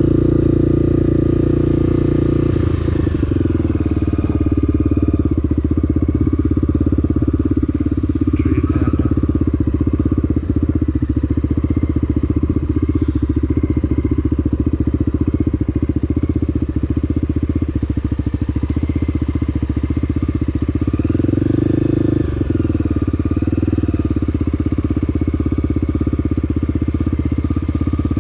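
Honda XR250L air-cooled single-cylinder four-stroke engine running steadily under way, with a change in engine pitch about three seconds in and again near the end.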